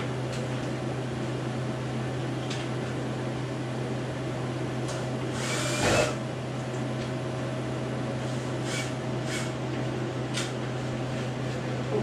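Steady low mechanical hum, with a brief louder whir lasting about a second around the middle and a few light clicks after it.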